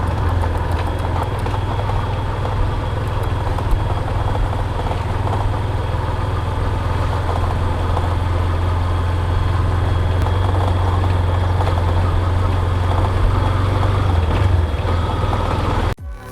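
Yamaha Fazer 250's single-cylinder four-stroke engine running steadily, with a few light knocks over it: the front-suspension noise being demonstrated, along with the chain noise that is always present on this bike. The engine sound cuts off just before the end.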